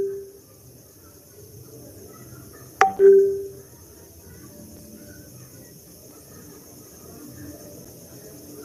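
A sharp click followed by a short, steady low tone that rings for about half a second, once about three seconds in; otherwise faint background hiss.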